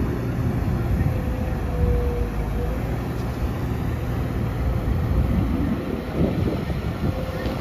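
Komatsu PC200 hydraulic excavator's diesel engine running steadily under working load, a deep rumble, with a faint whine for about a second some two seconds in.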